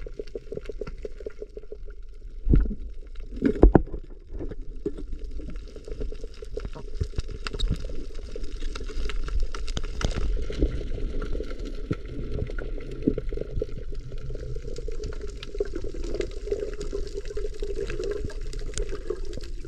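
Muffled underwater sound heard through a submerged camera over a coral reef: a steady watery rush with a dense crackle of small clicks, and two louder knocks about two and a half and three and a half seconds in.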